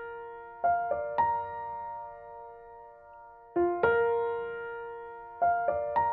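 Background music on a soft keyboard: slow chords, each a few notes struck close together and left to ring and fade, the phrase recurring about every three seconds.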